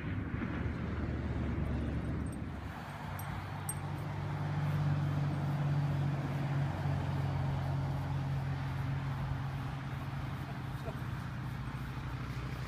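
Low wind rumble on the microphone, then, from about two and a half seconds in, a steady low mechanical hum.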